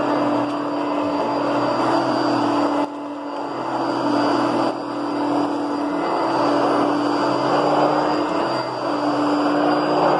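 Kenmore Heavy Duty Plus 6.4-amp upright vacuum cleaner running, a steady motor hum with a high whine over the rush of air. The sound drops suddenly about three seconds in and again near five seconds, building back up each time.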